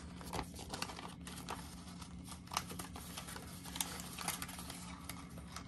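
Crinkling and rustling of a clear plastic zipper pouch in a cash binder as paper bills are handled and slid into it, a run of irregular small crackles and clicks.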